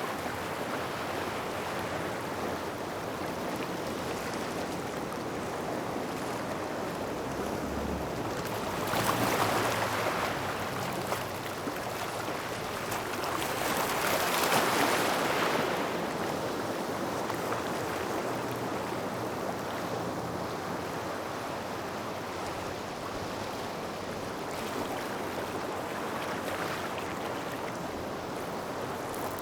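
Small waves washing in and out over a gravel shoreline: a steady wash of water with larger surges about nine and fourteen seconds in, and a smaller one near the end.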